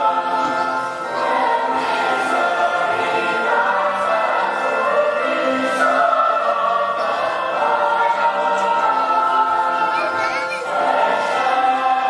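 A choir singing long held notes, with a brief dip about a second in and again near the end.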